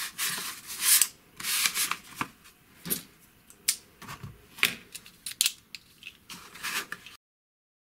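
A thin plywood sheet and a steel ruler slid and scraped across a cutting mat for the first two seconds, then a series of sharp clicks and light knocks as the ruler is set down and a snap-off utility knife is handled. The sound cuts off suddenly near the end.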